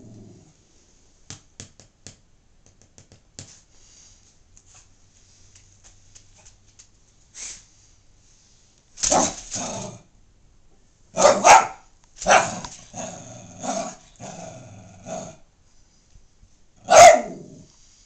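Small dog barking: after a quiet stretch, a pair of barks about halfway through, a quick run of barks after that, and one last loud bark near the end.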